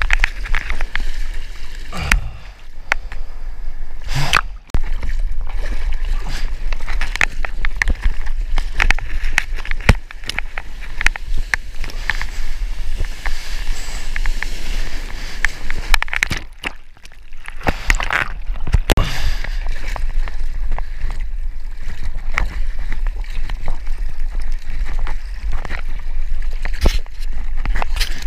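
Sea water sloshing and splashing close to a mouth-mounted GoPro as a surfer paddles a surfboard through choppy whitewater, with many short crackling splashes.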